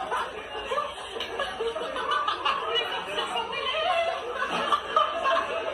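People snickering and chuckling, with bits of indistinct talk mixed in.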